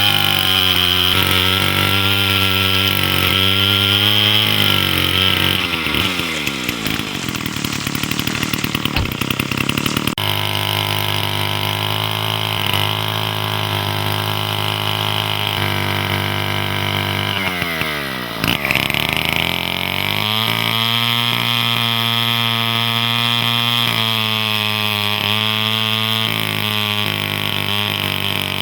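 Soviet Druzhba-4 two-stroke chainsaw running and being revved: high revs at first, dropping off about six seconds in, steady running in the middle, a second drop and then a rev back up to high speed near the twenty-second mark.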